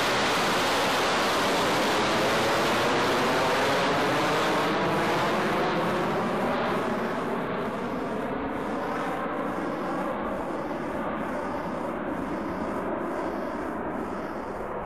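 B-52 Stratofortress jet engines roaring as the bomber climbs out and passes overhead: a loud, steady rush whose tone slowly shifts with the passing aircraft, easing off a little about halfway through.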